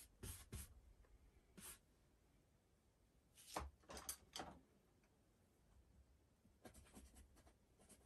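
Faint scratchy strokes of a bristle paintbrush dragging oil paint across canvas and palette, coming in a few short groups of strokes with quiet between them.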